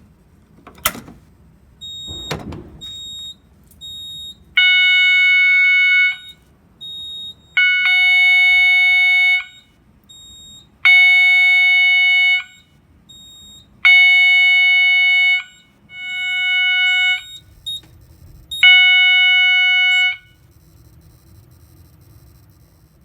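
A Notifier BNG1 pull station is pulled with two sharp clacks. A System Sensor SS-24 horn then sounds its 800 Hz tone in slow pulses, about one 1.5-second blast every three seconds: the Simplex 4008 panel coding it to 20 beats per minute. It gives six blasts and then stops.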